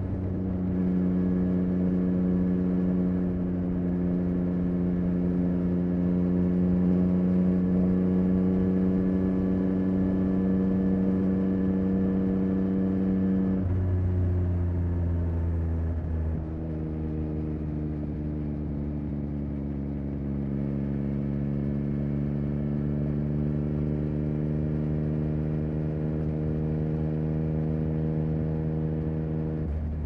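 A 2023 Yamaha XSR900's three-cylinder engine running through a Spark aftermarket exhaust while riding. The exhaust note holds steady, drops in pitch about halfway through, then settles lower and slowly climbs again.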